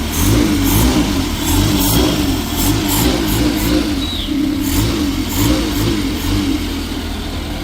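Car engine running, its revs wavering up and down, with irregular light clicks over it.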